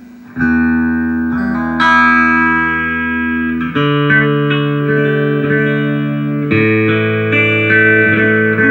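Electric guitar chords played through a 1975 Ibanez/Maxon Phase Tone phaser set to its slowest speed, giving a very slow phase. About five chords are struck, each left to ring.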